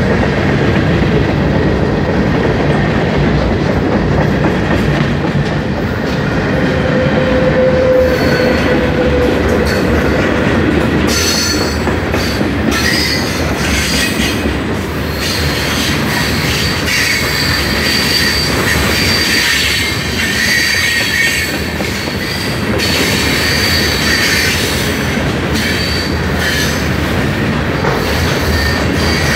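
Freight cars of a mixed freight train rolling past: a steady rumble of steel wheels on the rails with clickety-clack over the rail joints. From about a third of the way in, high wheel squeal comes and goes over the rumble.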